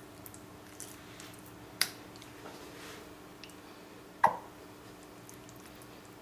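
Soft squelching of Dijon mustard being squeezed from a plastic squeeze bottle and spread by hand over raw chicken thighs, with two sharp clicks, the louder about four seconds in. A faint steady hum sits underneath.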